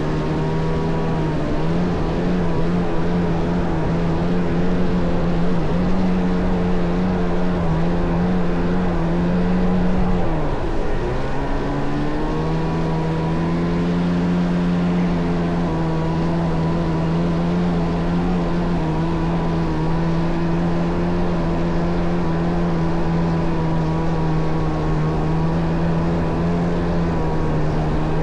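Kawasaki JS550 stand-up jet ski with a swapped-in 650 two-stroke twin engine running steadily under way. About ten seconds in the revs drop briefly, then climb back and hold a steady pitch.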